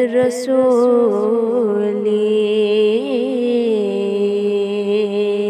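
A single voice singing a devotional Sufi kalam, holding out a long ornamented note between lines, over a steady drone.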